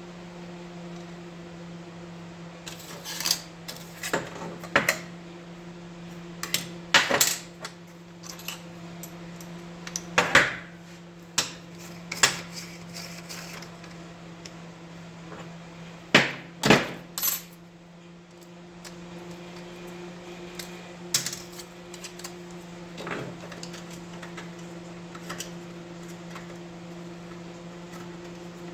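Hard objects, likely metal, clinking and knocking about fifteen times at uneven intervals, over a steady low hum.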